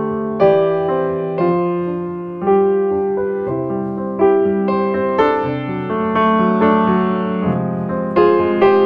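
Slow background piano music: single notes and chords struck and left to fade, a new one about every half second to a second.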